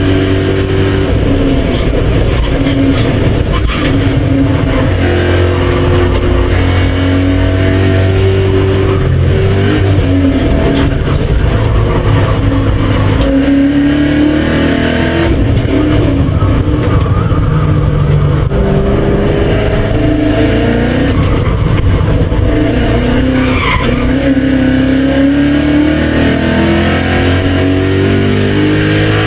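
BMW E39 M5's 4.9-litre V8 driven hard on track, its pitch climbing and dropping again and again as it revs through the gears and backs off. A brief tyre squeal comes about three-quarters of the way through.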